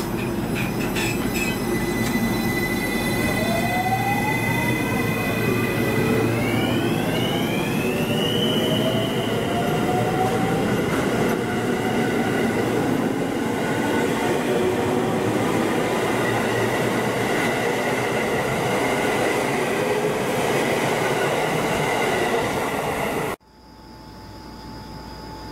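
A 12-car JR West Shin-kaisoku electric train of 225- and 223-series cars pulls away from the platform. Its inverter-driven traction motors give a whine that rises in pitch as it gathers speed, stepping up partway, over the running noise of wheels on the rails. The sound cuts off abruptly near the end.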